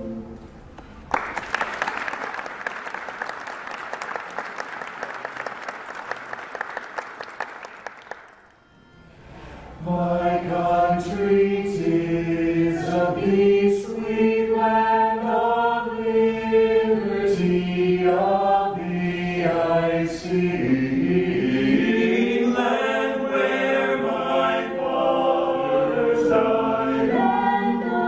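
Audience clapping for about seven seconds. After a short pause, an eight-voice a cappella choir starts a new song, singing in harmony.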